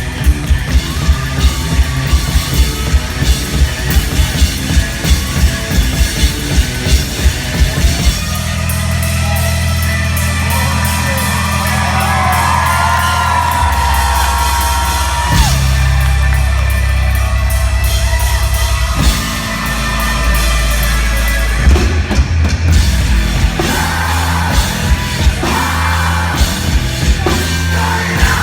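Live rock band playing loudly. For about eight seconds there are fast, even kick-drum beats. Then come sustained heavy low chords, and drums and yelled vocals return near the end.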